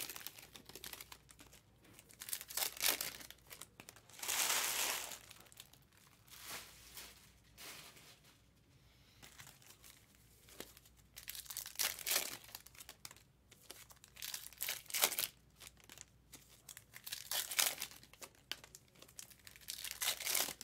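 Foil trading-card pack wrappers being torn open and crinkled in the hands, in repeated bursts with short pauses between them.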